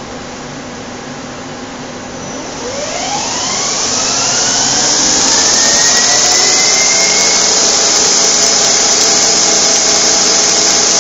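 Daewoo Puma 400 CNC lathe spindle and 15-inch chuck spinning up: about two seconds in, a whine starts rising in pitch and loudness, then settles into a steady loud whine with a rush of air as the spindle holds speed.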